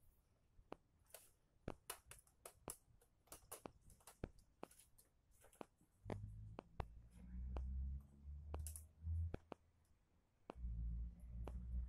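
Irregular sharp clicks and taps, at times several a second. Bursts of low rumble start about six seconds in and come again near the end.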